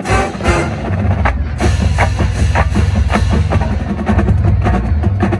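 University marching band playing, with the drumline and bass drums beating a steady, driving rhythm.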